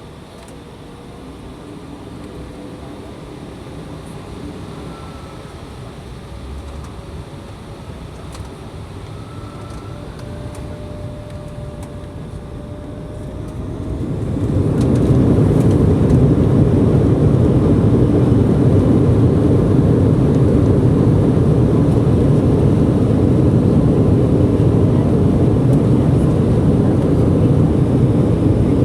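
Embraer E175's turbofan engines heard inside the cabin: a faint whine rises slowly over a steady hum, then about halfway through the engines come up sharply to takeoff power and run loud and steady, the start of the takeoff roll.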